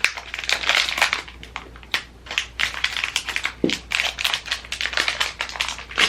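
Rapid, irregular clicking, tapping and crinkling from small cardboard advent-calendar boxes and metal pins being handled and pulled out.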